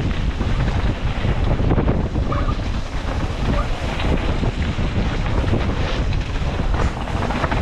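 Wind buffeting the microphone: a steady low rumble of noise with no let-up.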